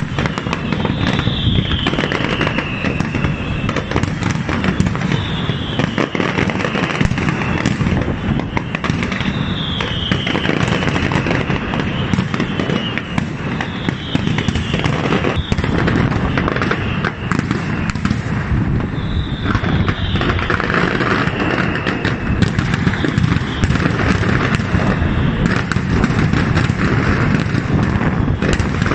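Aerial firework display (castillo de fuegos artificiales): a continuous run of bursting shells, bangs and crackling, with a high whistle falling in pitch every few seconds.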